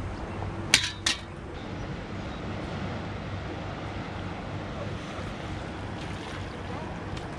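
Steady rush of churning outflow water below a hydroelectric dam. Two sharp knocks come about a second in.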